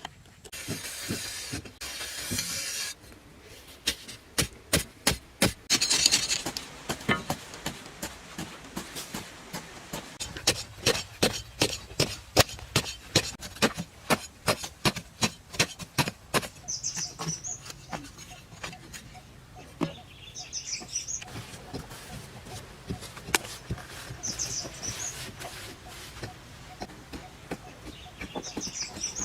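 Repeated sharp knocks of hand-tool work, about two strokes a second, with scraping noise near the start. A short high chirp comes every few seconds in the second half.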